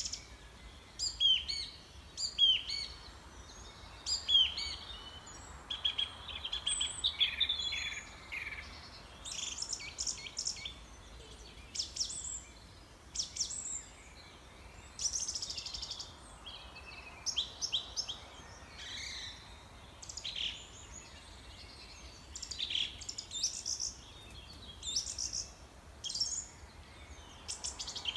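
Birds chirping: many short, high calls and quick downward-sweeping chirps repeating throughout, with a brief rapid trill partway through, over a faint steady background hiss.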